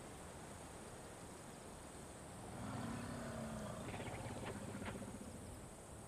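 A low-pitched animal call with several overtones, starting about two and a half seconds in and lasting about three seconds, turning into a rapid pulsing near its end, over a faint steady hiss.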